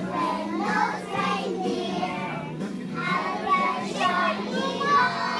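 Group of young children singing together, with music.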